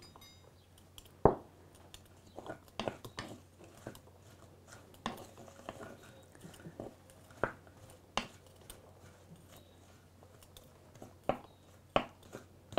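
Sparse small clicks, crackles and light knocks of hands working food: garlic cloves being peeled and broken over a clay mortar.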